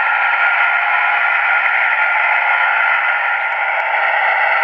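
Sound decoder in a model AC4400 diesel locomotive playing a steady diesel engine running sound through its small speaker, heard as an even, hissy drone with no low bass.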